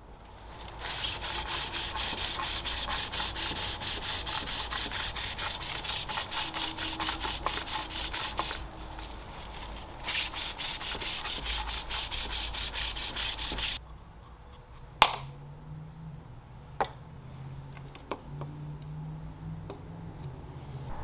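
Wooden bowl spinning back and forth on a pole lathe, rubbed with a handful of its own shavings to burnish it: a rhythmic rubbing hiss of about four pulses a second, with a short break partway through. It stops about two thirds of the way in, followed by two sharp knocks and quieter handling.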